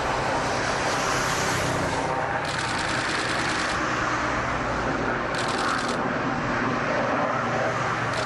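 Steady aircraft engine noise, a continuous rushing sound with a low hum under it and a few brief patches of added hiss.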